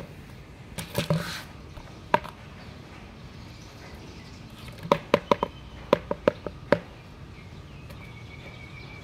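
Sharp, hollow taps on an upturned plastic bucket as a kitten bats at a feather toy dangled on it: a couple of single taps, then a quick run of about eight taps.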